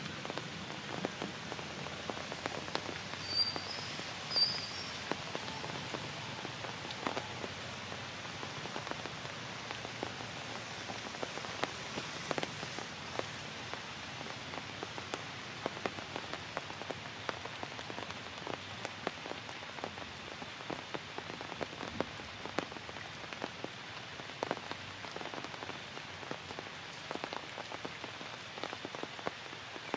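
Steady rain falling on foliage, with many separate drops hitting close by. A few brief high chirps come about three to four seconds in.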